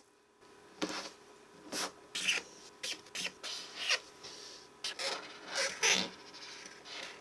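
A pen tip squeaking against the writing surface as letters are drawn, in about a dozen short squeaks, several sliding down in pitch.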